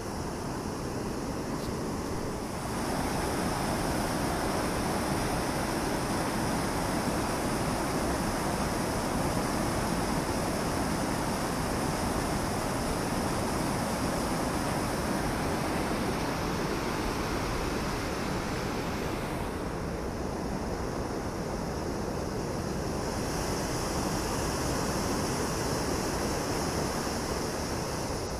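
Water rushing over a river weir, a steady loud rush that gets louder about two and a half seconds in.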